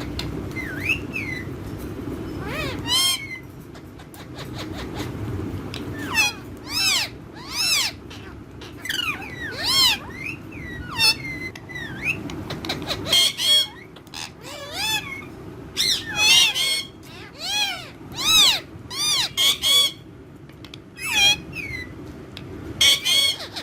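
Several pet parrots calling back and forth: many short, arching squawks and whistles one after another, with a few harsher screeches about halfway through and near the end.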